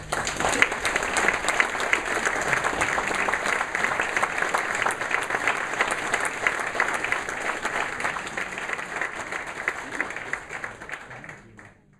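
Audience applauding: dense clapping that starts suddenly, holds steady, and fades out near the end.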